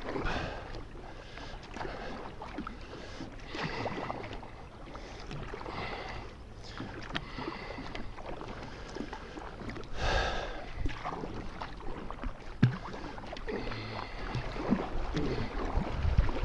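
Strokes of a double-bladed kayak paddle on calm river water: the blades dip, pull and splash on alternate sides about every two seconds, with water running off the blades in between.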